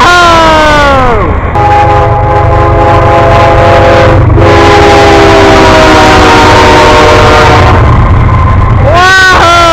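Locomotive air horn sounding a chord of several notes at once, very loud. One blast sags in pitch and ends in the first second, a long held blast runs from about a second and a half until near the end, and a new blast starts just before the end, all over the steady low rumble of the train.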